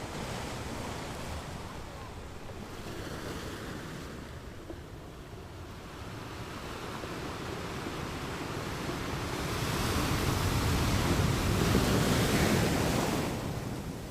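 Ocean waves breaking on a shore: a steady wash of surf that swells to a louder breaking wave about ten seconds in and eases off near the end.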